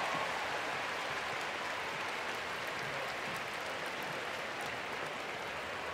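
Large arena crowd applauding, the applause slowly dying down.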